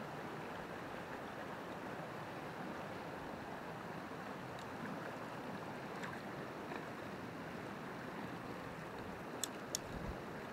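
Steady rush of a small rocky mountain stream flowing over stones, with a few faint clicks in the middle and two sharp ticks near the end.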